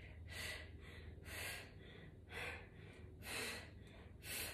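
A woman's heavy breathing while exercising: faint, rhythmic breaths about one a second, five in all, over a steady low hum.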